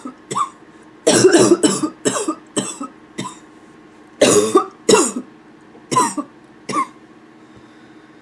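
A person coughing with a hoarse, barking cough: about ten short, sharp coughs in a few quick clusters, stopping about seven seconds in.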